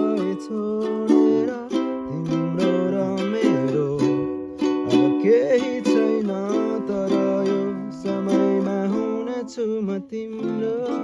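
Music: a string instrument strummed in repeated chords.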